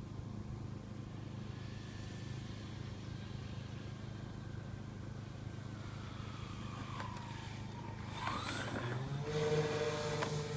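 Electric motors and propellers of a four-engine radio-controlled Super Constellation model in flight: a whine that falls in pitch, then swings up and down as the plane passes, ending in a steadier, louder tone near the end.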